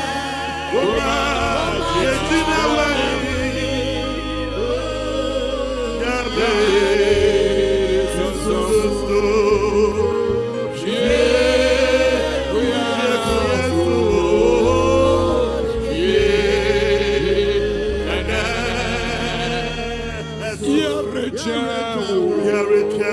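Gospel worship song: voices singing long, wavering phrases over instrumental accompaniment with a bass line that changes notes every second or two.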